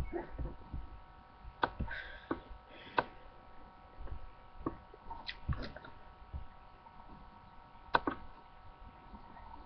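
A handful of scattered sharp clicks and light knocks of hands working a computer over a faint steady hum of several tones.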